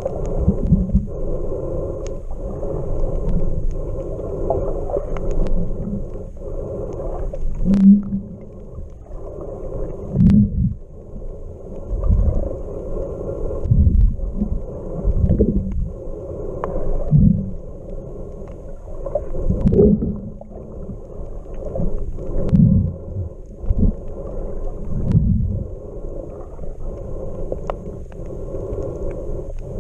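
Muffled underwater sound picked up by a camera held below the surface: water sloshing and rumbling against it, with low surges every two to three seconds and a few sharp clicks.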